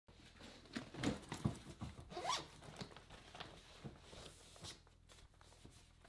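Bag-handling noises: a backpack zipper drawn open about two seconds in, amid rustling and light knocks as a laptop is handled.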